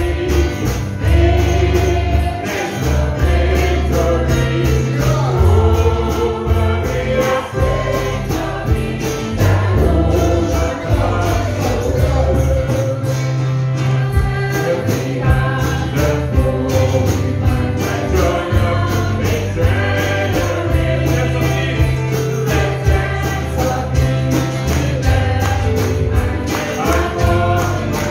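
Live gospel praise song: a group of singers on microphones sings with band backing, carried by a strong bass line and a steady beat through a PA.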